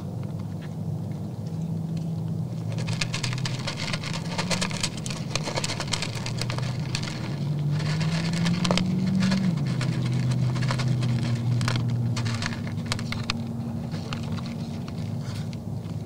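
Whitetail bucks feeding from a trough right by the microphone: a dense crunching and clicking of feed being chewed and nosed about. It starts a few seconds in, is heaviest in the middle and thins out after about two-thirds of the way. A low hum with a slowly shifting pitch runs underneath.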